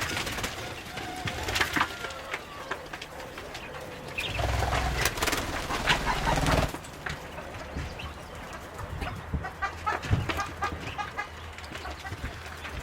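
Poultry calling and clucking, with scattered clicks and knocks, and a louder stretch of low rumbling noise from about four to nearly seven seconds in.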